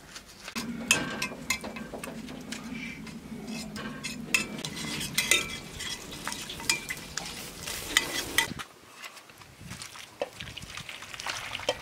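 Metal spoon stirring and scraping tomato paste in a stainless saucepan as water is poured in from a kettle: clinks and scrapes over a steady sizzling hiss. The hiss stops suddenly about eight and a half seconds in, and a few pan clanks follow near the end.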